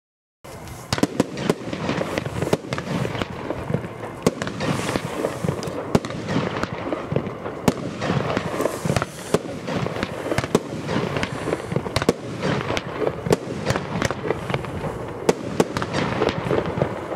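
Gaoo Diamond 3 firework battery firing. A continuous run of shots and bursts with many sharp bangs starts about half a second in.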